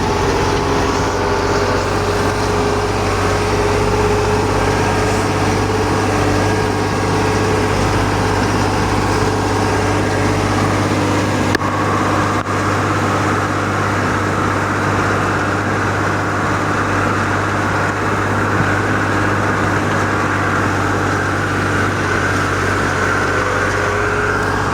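Steady engine noise, a continuous low hum with a few held tones over it and no breaks.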